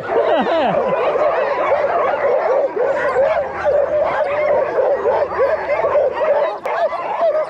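Many harnessed sled dogs (huskies) barking and yipping at once in a loud, continuous, overlapping chorus: the dogs are excited to get going and start running.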